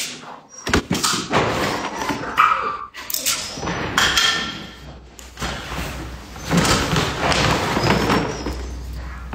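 Pet dogs moving about with repeated thumps and knocks, and a short whine about two and a half seconds in.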